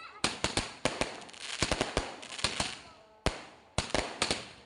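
Fireworks and firecrackers going off in a rapid, irregular string of sharp bangs, about fifteen in under five seconds, with a crackling hiss between them.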